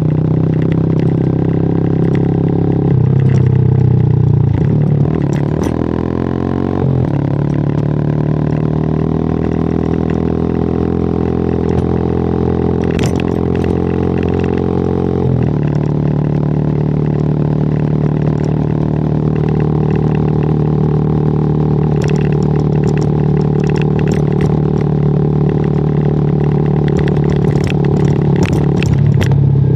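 WMOTO Hawk 200i motorcycle engine and exhaust running under way. The engine note shifts several times with throttle and gear changes, dropping in pitch about halfway through. Scattered sharp clicks and knocks come in the second half.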